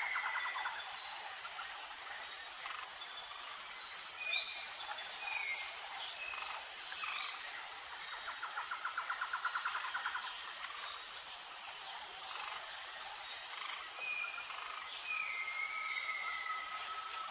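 Tropical forest ambience: a steady insect drone with a high call repeating about once a second, scattered bird chirps and short whistles, a rapid trill about halfway through, and one long held whistle near the end.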